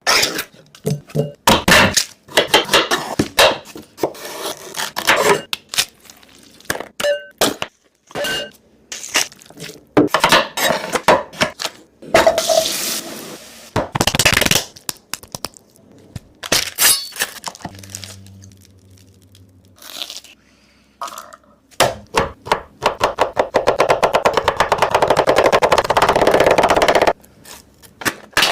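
Clatter of cooking utensils and dishes: repeated knocks, clinks and scrapes, with sharp cracks. A dense, fast, even rattle starts about two-thirds of the way in and stops near the end.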